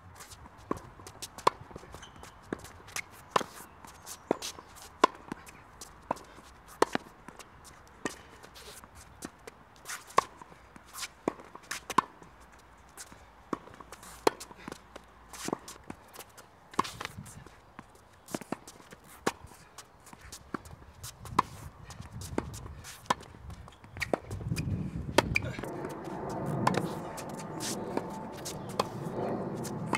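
Tennis rally: a steady run of sharp pops as the ball is struck by rackets and bounces on a hard court, one or two a second. From a little before the end a fuller low background noise rises under the hits.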